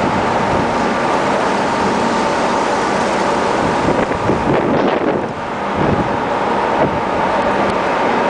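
Icebreaker under way through broken pack ice: a steady rush of slabs grinding and scraping along the hull, over a faint steady hum from the ship's machinery, with wind on the microphone. The noise turns rougher and more irregular around the middle.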